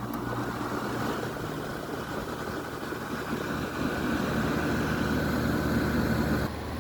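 Air conditioner running: a steady mechanical hum with fan air noise over it. It grows louder a few seconds in, then drops off abruptly near the end.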